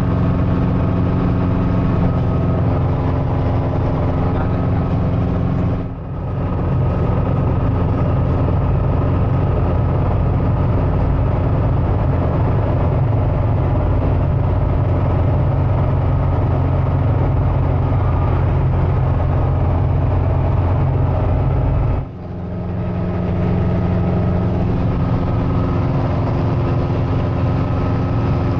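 Cabri G2 helicopter heard from inside the cockpit: its Lycoming piston engine and rotors run in a loud, steady drone with several even tones. The sound dips and changes character abruptly twice, about six seconds in and again around 22 seconds.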